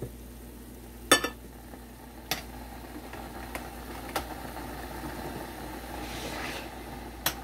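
Metal spoon clinking against a ceramic plate and a stainless skillet while food is served: one sharp ringing clink about a second in, then a few lighter knocks. A steady low hum runs underneath.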